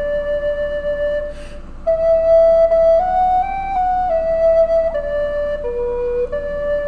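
Background music: a solo flute playing a slow melody of held notes that step up and down, with a short break and an audible breath about one and a half seconds in.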